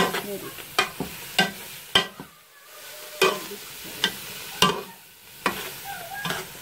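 A spoon stirring and scraping thick, grated-carrot halwa in a metal pot, with a dozen or so sharp, irregularly spaced knocks against the pot, over a faint sizzle of the halwa frying in ghee. The halwa has reached the end stage of cooking, where the ghee separates out.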